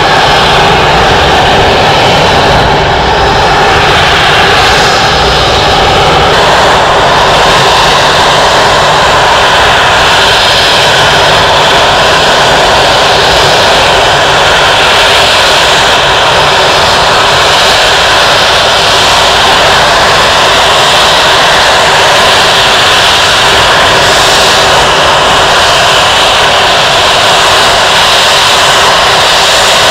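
Twin Rolls-Royce Trent 772 turbofans of an Airbus A330-200 running at taxi power, a loud steady jet whine and rush as the airliner taxis close toward the listener.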